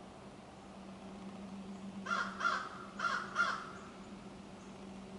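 A crow cawing four times, in two quick pairs, over a faint steady hum.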